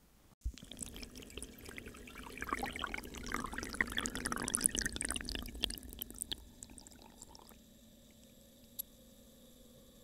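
Water pouring and gurgling into a steel pressure chamber as it fills. It starts suddenly, grows louder and splashier with many small crackles, then fades after about six seconds to a faint steady hiss, with a single click near the end.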